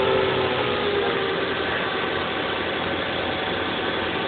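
Steady hum and hiss of running machinery, with a few faint steady tones; one tone near the start slides slightly downward.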